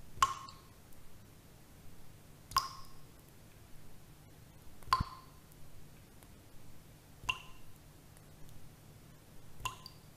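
Slow, evenly spaced dripping: a single short drop-like plink about every two and a half seconds, five in all, over a low steady hum.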